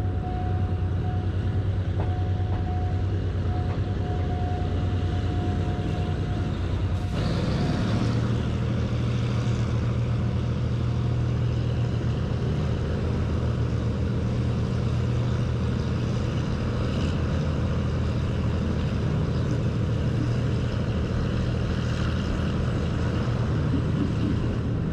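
Passenger train running along the track, heard from inside the carriage: a steady low rumble and hum. A steady high tone sounds over it until about seven seconds in, when the low hum changes and grows stronger.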